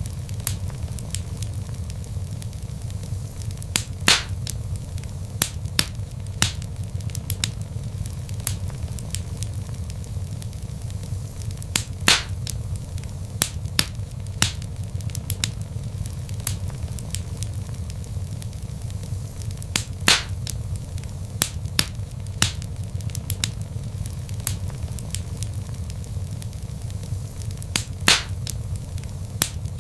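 Log fire in a fireplace crackling: many sharp pops and snaps over a steady low rumble of the flames. A few louder pops come about every eight seconds.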